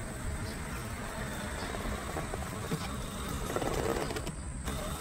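Electric motor and gears of an FMS FJ40 Land Cruiser RC scale crawler running as it crawls through grass and dead leaves.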